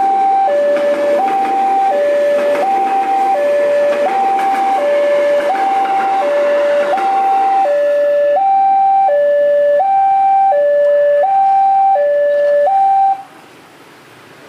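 Railway level crossing warning alarm sounding a loud two-tone high-low signal, switching pitch about every three-quarters of a second, and cutting off abruptly near the end. A rushing noise runs under it and fades out about halfway through.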